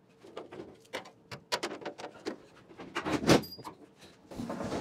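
The Triumph GT6's one-piece tilting bonnet being lowered shut by hand: a series of metal clicks and knocks, with the loudest thump about three seconds in as it comes down.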